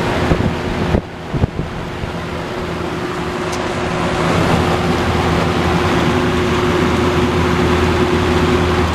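Vintage Robeson 20-inch box fan running on high: a steady motor hum under loud rushing air from the blade. There are a few short knocks about a second in.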